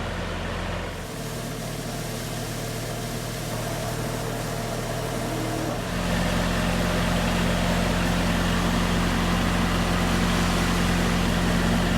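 Motorized rice-processing machine running steadily with a low hum, its sound changing about a second in and again, a little louder, around six seconds in.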